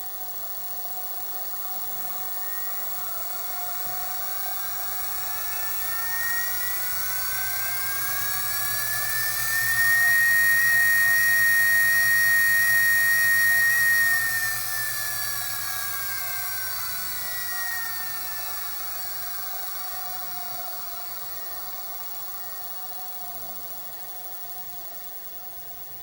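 Treadmill drive motor powered by the repaired MC1618DLS control board, run as a test of the board's motor output. Its whine rises in pitch as it speeds up over about ten seconds and holds steady and loudest for about four seconds. It then falls away as the motor slows down.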